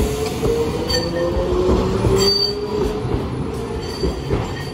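Hiroden streetcar running on street track, with a whine from the wheels and running gear that rises slightly and then falls, and a few clicks from the rails.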